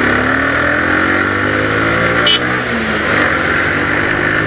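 Motorcycle engine under way, accelerating: the revs climb for about two seconds, drop at a gear change, then climb again, with a steady rush of wind noise. A short high chirp sounds just after the gear change.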